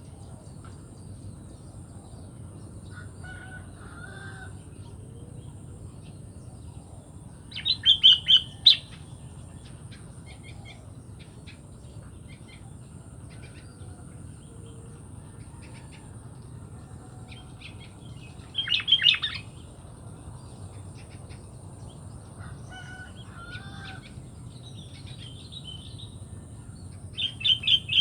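Sooty-headed bulbul (kutilang) calling: three loud bursts of rapid, chattering high notes, about 8 seconds in, about 19 seconds in and again near the end, with softer short calls in between.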